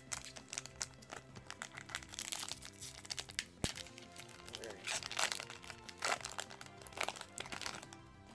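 Foil wrapper of a Japanese Pokémon booster pack crinkling and crackling in irregular bursts as it is handled and torn open, over steady background music.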